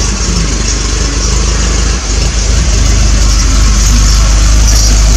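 Triumph TR7's 2.0-litre slant-four engine idling steadily as it warms up, its exhaust running through a newly fitted mid silencer.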